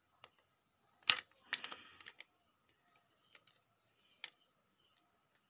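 Scattered light metallic clicks and knocks as a screwdriver shaft levers against a motorcycle's twin-piston front brake caliper, pushing the pistons back into their bores. The loudest knock comes about a second in.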